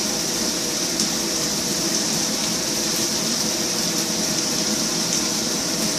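Vegetables stir-frying in coconut oil in a pan: a steady sizzling hiss, with a low steady hum under it.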